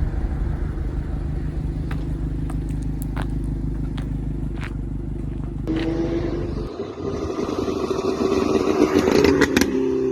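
Subaru Legacy GT-B engine and exhaust, tuned on the stock ECU for overrun crackles. A low, steady rumble with a few sharp pops gives way, about six seconds in, to the engine revving up and holding steady. A burst of crackling comes near the end as the revs start to drop.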